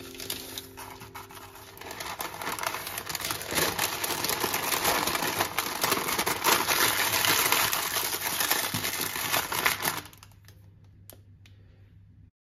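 Baking paper crinkling and rustling as it is rolled and folded tightly around a sandwich. It grows louder about two seconds in and drops to a few soft rustles about ten seconds in, then cuts off just before the end.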